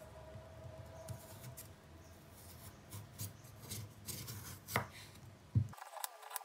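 Kitchen knife paring the skin off a raw carrot on a wooden cutting board: a run of short scraping cuts, with two sharp knocks of the blade on the board near the end.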